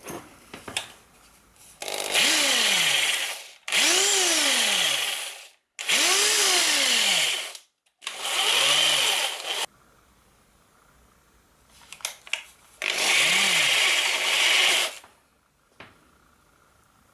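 Parkside PSBM 750 B3 hammer drill run in five short bursts, its motor pitch rising as it spins up and falling as it winds down each time. A few light clicks come before the first burst and before the last.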